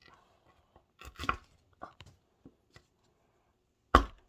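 A hand tool knocking and chipping at the hard plaster block of a dig kit: a cluster of knocks about a second in, a few lighter taps, then one loud sharp knock near the end.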